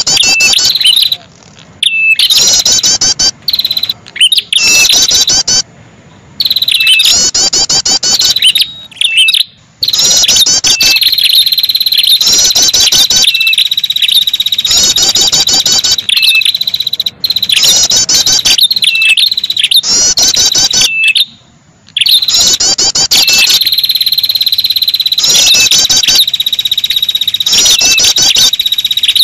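Prenjak kepala merah (red-headed prenjak) lure call: loud, fast, high-pitched chattering trills in short repeated phrases over a steady high buzzing tone, broken by a few brief pauses.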